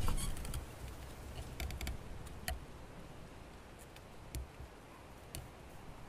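Scattered light clicks and ticks, a handful at irregular spacing, a couple of them with a soft thud, over a low rumble that fades during the first second.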